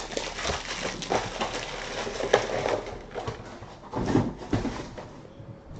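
Trading-card packaging being handled: dense crinkling and rustling with sharp crackles, thinning out after about three and a half seconds.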